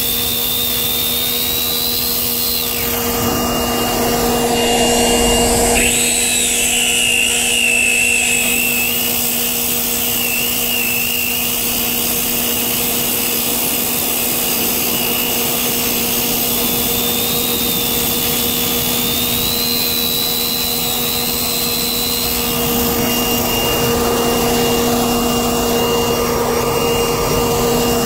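Circular saw with a DeWalt diamond blade cutting through asphalt, running continuously. Its motor whine wavers up and down in pitch as the load in the cut changes, over a steady low hum.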